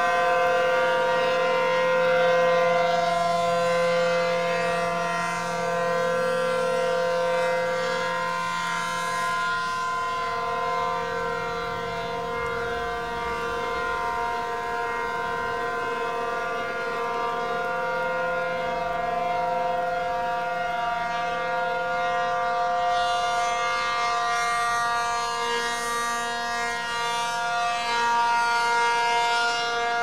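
Tornado warning siren sounding a steady tone, several pitches held together as one chord, swelling gently in loudness.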